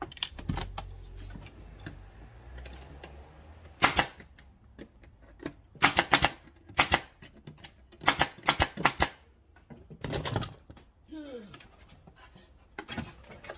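A string of sharp knocks on wood in quick clusters of two to four: one about four seconds in, then groups around six, eight to nine and ten seconds.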